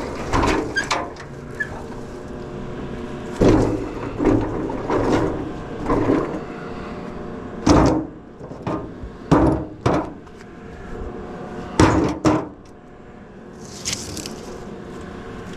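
Sheet-metal casing of a gas heater being pried and pulled apart by hand: about a dozen irregular clanks and knocks, some ringing on, with a brief scraping rasp near the end.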